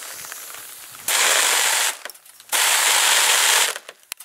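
Compressed air blasting out of a homemade plastic-bottle airsoft gun fed from an air compressor, in two hissing bursts. The first lasts just under a second and the second a little over a second.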